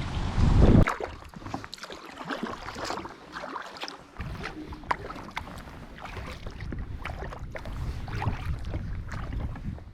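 Water splashing and dripping in many small irregular splashes, with wind buffeting the microphone for about the first second.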